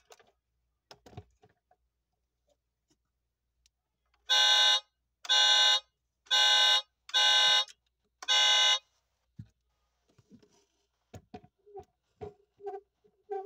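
Electronic car-horn sound from a 1:18 scale diecast Audi A6L model's built-in sound unit: five short buzzy honks about one a second. Small clicks and taps of the model's doors being handled come before and after.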